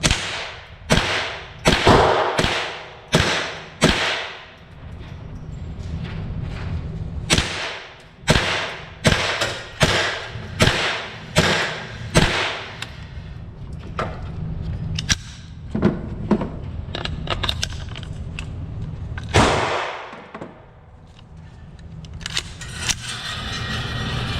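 Semi-automatic shots from a Ruger AR-556 rifle fitted with a CMMG .22LR conversion bolt carrier, each a sharp crack with a short ringing tail. The shots come in irregular strings: several in the first few seconds, a quicker run of about ten after a pause, then scattered single shots, with a steady low rumble underneath.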